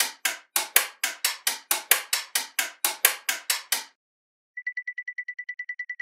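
A quick, even run of sharp clicks, about five a second, for about four seconds. After a short gap comes a fast ticking on one high pitch, about ten a second.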